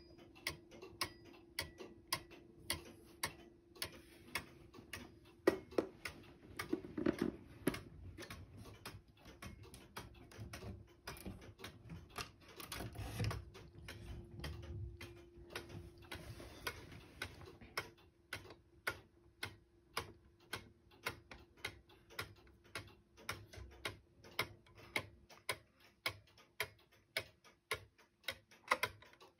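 Antique cuckoo clock movement ticking steadily, about two ticks a second. Through the middle, rubbing and knocking from the case being handled mix with the ticks.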